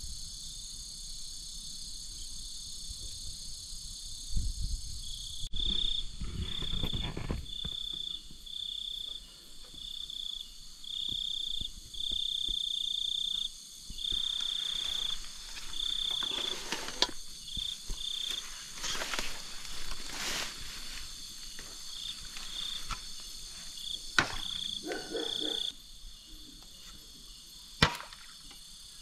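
Night insects calling: a steady high-pitched chorus, with one insect near it calling in short on-and-off bursts. Now and then there is rustling and handling noise, and a few sharp clicks.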